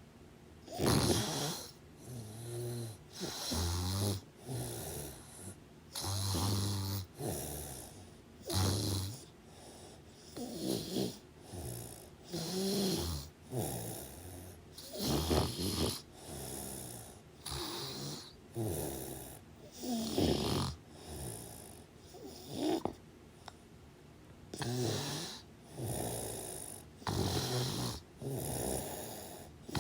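Snoring: a run of noisy, rhythmic snoring breaths, one about every one to two seconds.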